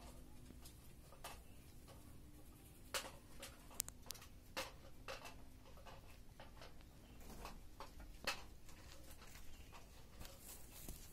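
English angora rabbit moving and grooming on artificial turf: faint rustling with a few sharp, scattered clicks.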